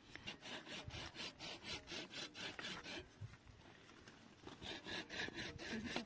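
Rhythmic rasping back-and-forth strokes, about four a second. They pause for about a second and a half midway, then resume.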